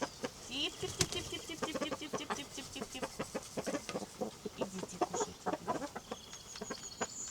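Domestic chickens clucking in a flock, many short clucks in quick succession with a sharp tap about a second in. Higher chirping comes near the start and again near the end.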